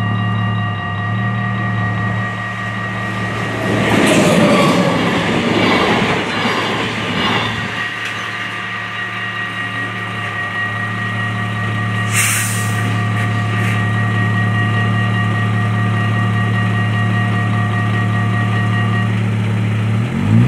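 Dutch level crossing's warning bells ringing steadily as a train passes through, a loud rush of wheels on rail about four to seven seconds in with some wheel squeal. The bells stop near the end as the barriers go up, while a steady low hum continues underneath.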